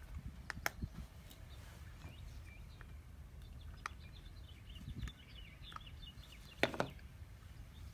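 A few sharp clicks and taps from hands and tools working on doorbell hardware, the loudest a double click near the end. Faint bird chirps run in the background.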